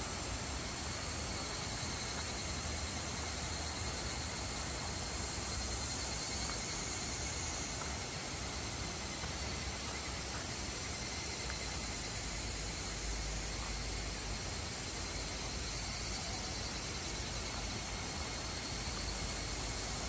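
Steady forest ambience: an even, unbroken hiss with a faint, high, steady insect drone running through it.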